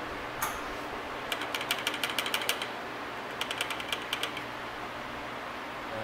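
A hand ratchet wrench clicking in two quick bursts of about a second each, some ten clicks a second, after a single sharp clack near the start.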